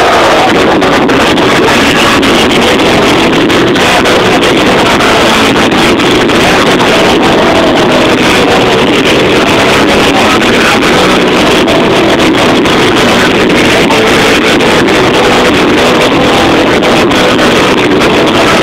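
A live band playing loudly, heard through a cell phone's microphone so overloaded that the music is smeared into a dense, distorted wash.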